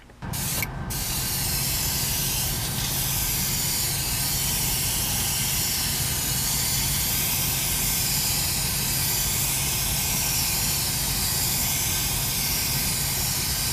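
Iwata airbrush spraying gold paint: a steady hiss of compressed air that starts just after the beginning, stutters once briefly, then runs on evenly over a low steady hum.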